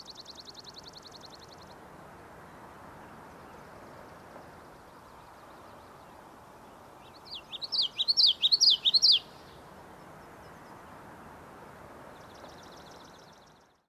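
A bird sings a loud burst of quick up-and-down high chirps for about two seconds midway, over a steady faint background hiss. A fast high trill sounds at the start and again near the end.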